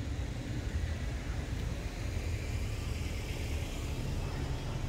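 Steady low rumble of a car driving slowly, engine and road noise heard from inside the cabin, with a faint hiss swelling through the middle.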